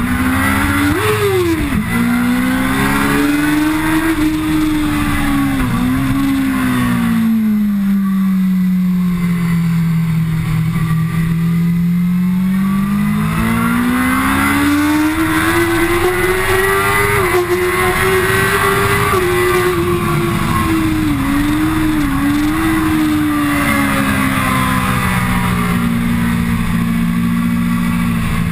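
Kawasaki ZX-10R's inline-four engine at track speed, its revs falling and rising with the gears and corners, lowest about a third of the way in and then climbing again. Brief sharp blips in pitch a few times, over a steady rush of wind.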